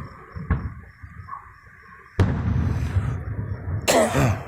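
Aerial fireworks going off: a sharp bang about half a second in, then a loud burst about two seconds in that rolls on in a low rumble. A short, shrill, wavering sound comes near the end.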